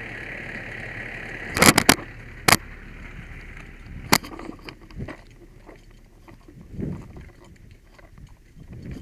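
The fire engine runs as a steady hum at first. Then several loud, sharp metallic knocks and clanks come in a cluster about one and a half to two and a half seconds in, and one more about four seconds in. After that comes quieter rustling and handling of heavy turnout gear close to the microphone.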